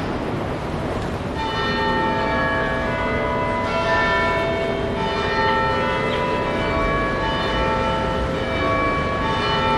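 Bells ringing, several bells at different pitches struck one after another, each note ringing on. They start about a second in, over steady background noise.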